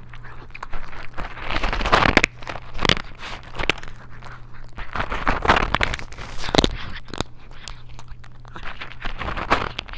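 A cat crunching dry kibble close to a microphone at the food bowl: irregular, crisp crunches as the biscuits break between its teeth.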